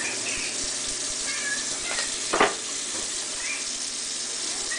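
Tap water running steadily, with one sharp knock about two and a half seconds in and a few faint high squeaks.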